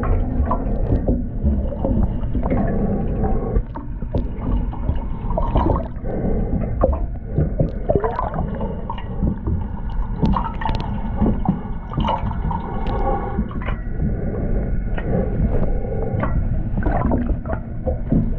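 Underwater water noise heard through a GoPro housing: churning, gurgling water and bubbles, with scattered short clicks and knocks throughout.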